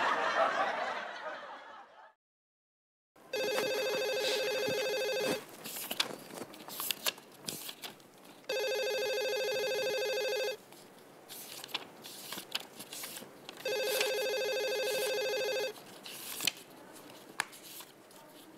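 Landline desk telephone ringing: three long rings of about two seconds each, about five seconds apart. Before the first ring, voices and laughter fade out, followed by a second of silence.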